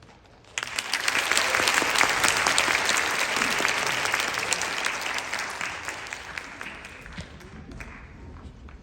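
Concert audience applauding: many hands clapping that start suddenly about half a second in and die away gradually over the last few seconds.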